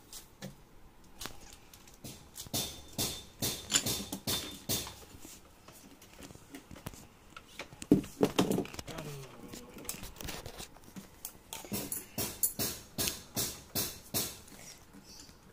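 Scattered knocks and taps of things being handled and moved about, coming in quick runs. There is a short voice-like sound about eight seconds in.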